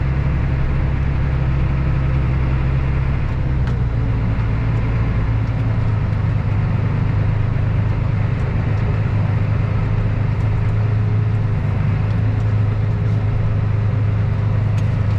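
Tractor's diesel engine running steadily, with a shift in its low note about three and a half seconds in.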